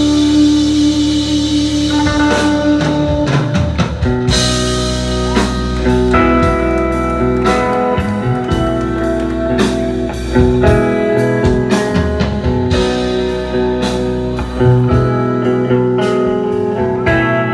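Live rock band: an electric guitar playing a lead line over bass. The opening notes are held, and sharp drum hits come in about two seconds in.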